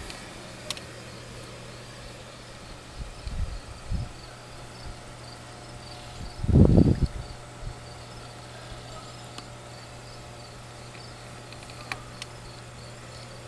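Crickets chirping in a steady, even high pulse over a constant low hum, with a brief low rumble about halfway through.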